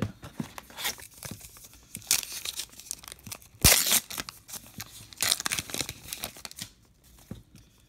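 Silver foil wrapper of a baseball card pack crinkling and tearing open in a series of rustles, with one sharp, loudest rip about three and a half seconds in.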